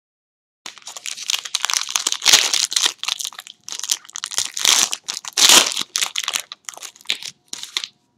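Plastic card-pack wrapping being handled, crinkling and tearing open in irregular bursts. The bursts start a little under a second in, are loudest around the middle, and thin out near the end.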